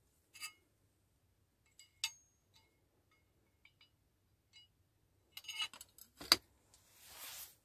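Light metallic clinks and taps of a Gravesande ball-and-ring apparatus: an iron ball and its chain knocking against the steel ring plate, with a cluster of taps and one sharp clank about six seconds in. A short hiss follows near the end.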